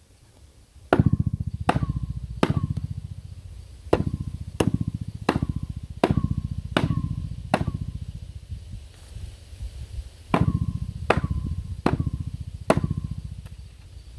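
Repeated blows pounding a 90-degree elbow fitting onto a pipe end: thirteen sharp knocks in three runs of three, six and four, about one blow every 0.7 seconds, each with a low boom and a brief ring.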